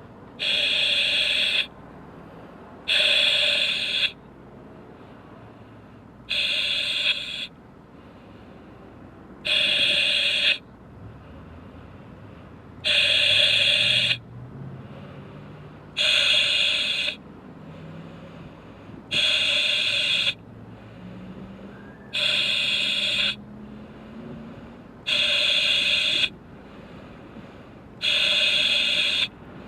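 A buzzer-like alarm tone sounds in one-second blasts about every three seconds, ten times, over a low steady rumble.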